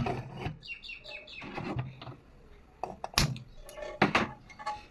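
Metal cooking utensils knocking and scraping against a pan on the stove, with sharp knocks about three and four seconds in and a quick run of short high squeaks about half a second in.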